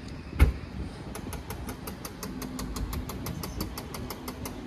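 A McLaren supercar's upward-opening door swung shut with one loud thud about half a second in. Rapid, even ticking follows at about six a second, over a low steady hum.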